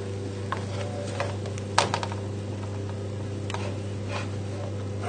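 A steady low hum with a few light clicks and taps as a metal baking tray of roasted vegetables is handled. The sharpest click comes about two seconds in.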